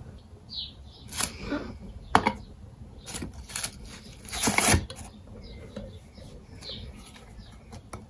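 Old metal pigment tins being handled on a newspaper-covered table: several short knocks and scrapes as a tin is set down and its lid picked up, with some paper rustling. The loudest knock comes about four and a half seconds in.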